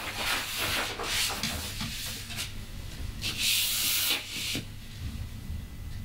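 Sheets of drawing paper rustling and sliding against each other as they are handled and leafed through, in several short bursts with a longer, louder rustle about three and a half seconds in.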